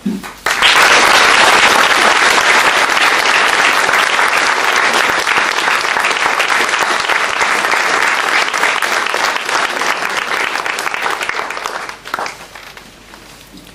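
An audience applauding. The clapping starts abruptly about half a second in and dies away near the end.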